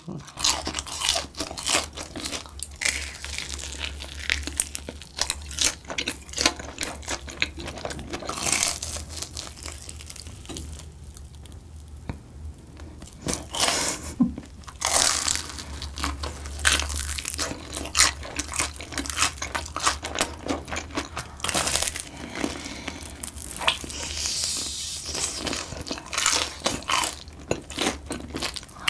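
Close-miked crunching and chewing of crispy, sugar-coated deep-fried Korean corn dogs: many irregular crackles from bites into the battered crust, with a brief lull about halfway.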